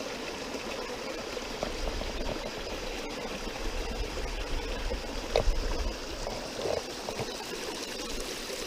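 Small woodland stream running, water splashing and gurgling as it spills over a fallen log in a little cascade. A brief louder knock comes about five and a half seconds in, with a smaller one about a second later.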